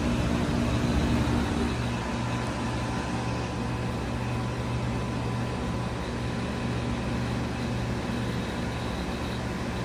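Outdoor heat pump unit running in heat mode: a steady mechanical hum from the compressor and fan, with higher tones that drop out about two seconds in. The owner hears it as making some weird noises.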